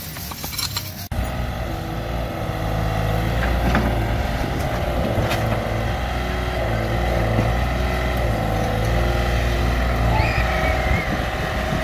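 Mini excavator's diesel engine running steadily, its note dipping and recovering every second or two as it works. A different, clinking sound ends abruptly about a second in.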